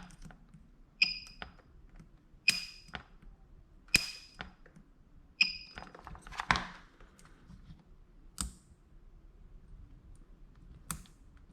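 PCB battery spot welder with a handheld welding pen firing welds onto 0.15 mm nickel strip: four sharp snaps about a second and a half apart, each with a short high beep. A few fainter clicks follow.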